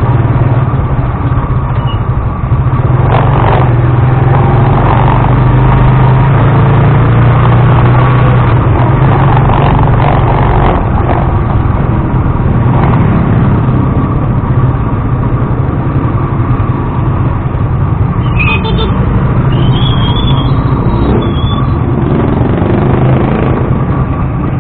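Motor tricycle's engine running steadily while riding, heard as a loud low drone with rough road and vibration noise through the action camera's microphone.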